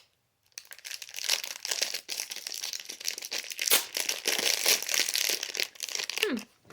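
Crinkling and crackling of plastic packaging being handled and pulled open around a fidget toy, a dense run of fine crackles starting about half a second in.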